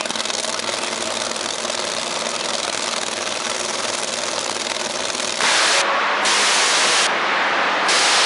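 Two nitromethane-burning supercharged V8 Funny Car engines running at the drag strip's starting line in a steady, dense roar. About five seconds in, the sound jumps sharply louder as the cars launch down the track, with the left-lane car leaving late.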